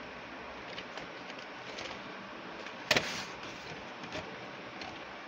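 VHS tapes in plastic cases being handled and pulled from a shelf: light scattered ticks and one sharp plastic clack about three seconds in, over a low steady hiss.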